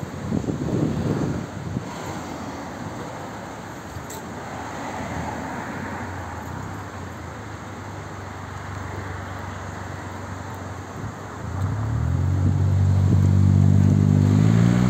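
Street traffic noise with a car passing, then a car engine close by running louder and rising in pitch as it revs up during the last few seconds.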